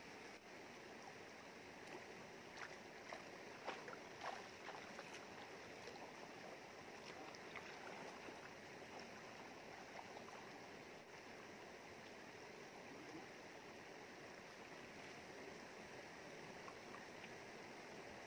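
Faint, steady rush of a flowing river over rocks, with a few light clicks and knocks in the first few seconds.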